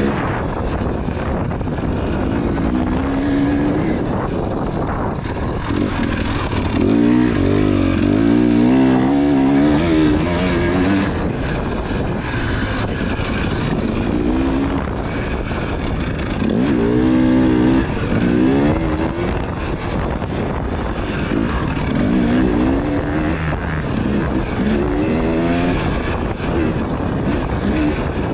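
Husqvarna dirt bike engine revving hard and easing off over and over as the rider accelerates along the track. Its pitch climbs and drops many times, loudest around a third of the way in and again past halfway.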